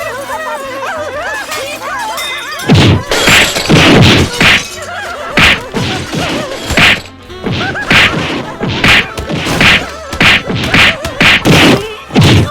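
A rapid run of punchy cartoon fight sound effects: loud whacks, thuds and smashes, some in quick flurries. They start about three seconds in, after a stretch of laughter over music.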